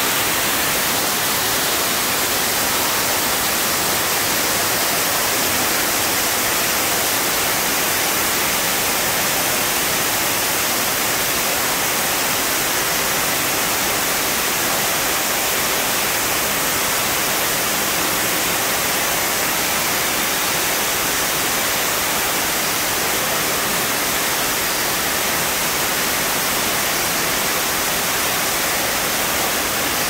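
Water falling in thin streams down a rock wall into an aquarium pool: a steady, even hiss that does not change.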